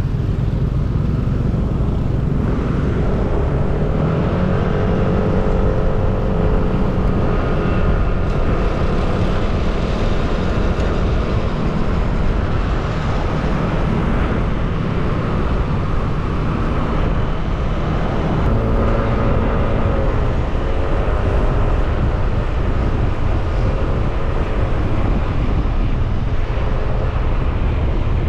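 Yamaha NMAX scooter's single-cylinder engine running under way, under a steady heavy rush of wind and road noise on the camera microphone; the engine note rises a few seconds in and again about two-thirds of the way through as the scooter picks up speed.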